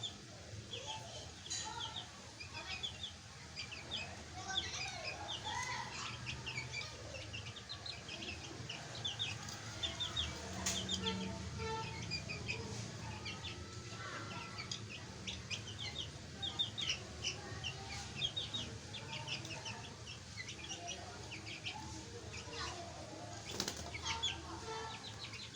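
A group of young chickens (chicks) peeping continuously in short, high chirps, with a few sharp knocks now and then.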